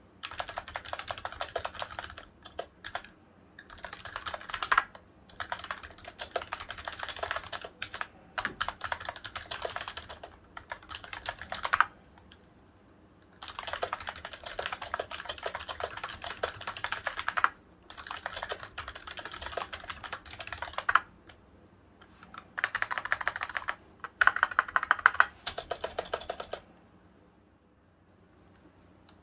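Typing on a Xenics STORMX TITAN SE membrane gaming keyboard: quick runs of soft key clicks in bursts of several seconds with short pauses, not loud for a gaming keyboard. Later, typing on a second keyboard, an LGA-K3200, for comparison.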